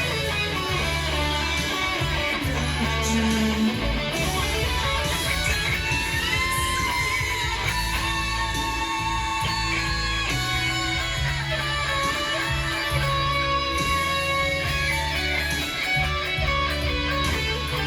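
Electric guitar playing a melodic line with string bends over a backing track with a steady bass part.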